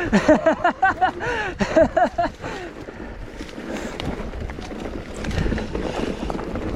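A person laughing for about two seconds, then a mountain bike rolling over a loose dirt trail: tyre crunch and rattle with wind on the microphone.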